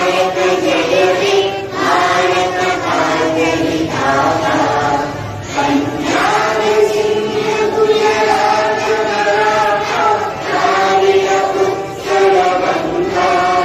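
A group of schoolchildren singing a prayer together in unison, in held phrases with short breaks every couple of seconds.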